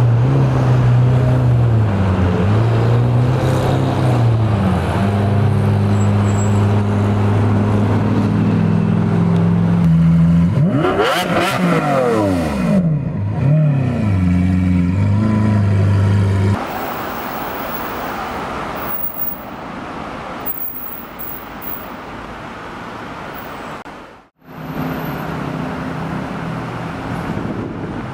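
Car engine running loud and steady, its pitch stepping up and down, then a car passes about ten seconds in with its pitch rising and then falling away. About halfway through, the sound cuts to quieter, steady street traffic noise, with a brief dropout near the end.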